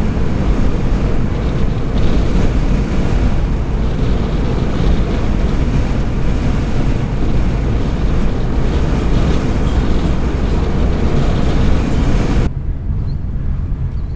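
Strong wind buffeting the microphone over the noise of a moving vehicle: a loud, steady rumbling hiss that cuts off suddenly near the end.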